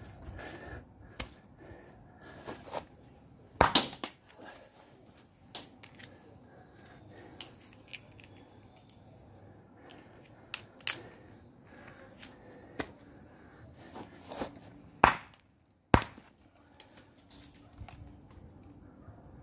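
Sledgehammer blows on a quartzite boulder being spalled: sharp cracks, a close pair about four seconds in and two more a second apart about three-quarters of the way through, with lighter clinks of broken rock pieces being handled between them.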